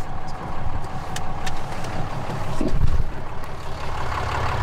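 Pickup truck driving on a gravel road: steady engine and tyre rumble, with a few sharp ticks.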